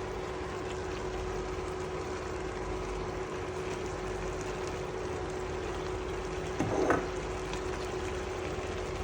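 Vegetables and chicken simmering in a pan of stock with a steady bubbling hiss and a faint steady hum underneath. There is a brief louder sound about seven seconds in.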